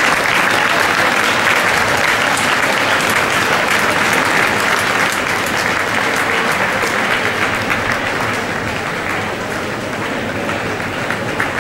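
Large audience applauding steadily, a dense wash of many hands clapping that eases a little near the end.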